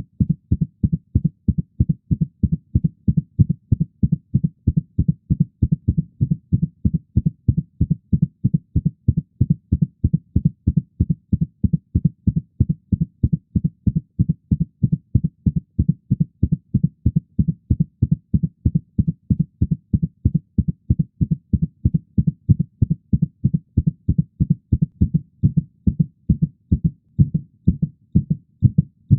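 Heartbeat sound effect: a quick, even run of low, dull thumps.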